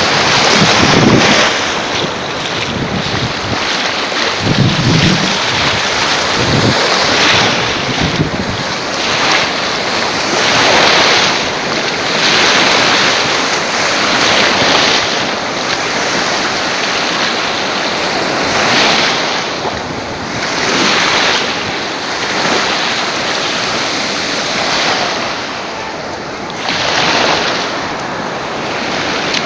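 Sea waves washing ashore in repeated swells of surf. Gusts of wind buffet the microphone in roughly the first eight seconds.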